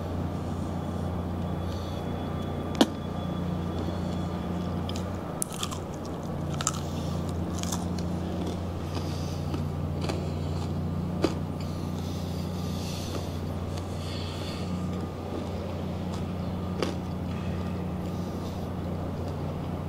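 A person chewing and biting into crispy pata, deep-fried pork leg, with mouth noises and a few sharp clicks scattered through. A steady low hum runs underneath.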